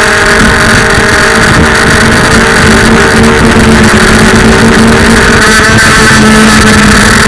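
FPV freestyle quadcopter's motors whining steadily, the pitch dipping and rising slightly with throttle.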